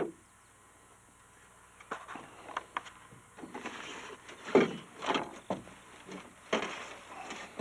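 Irregular knocks, clicks and short scrapes, starting about two seconds in, as a freshly netted northern pike is handled in the boat and the landing net.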